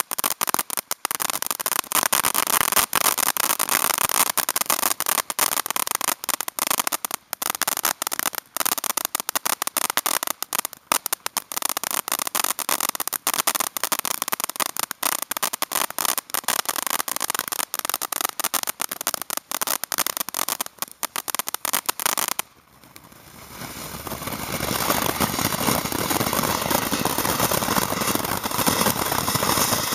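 Ground fountain fireworks spraying sparks: dense, continuous crackling, which cuts off suddenly about three-quarters of the way through. A steady hiss then builds up over a couple of seconds as another fountain sprays.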